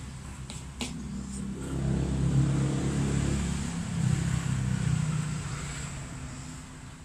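A motor vehicle's engine going by, its low hum swelling to a peak midway and then fading away.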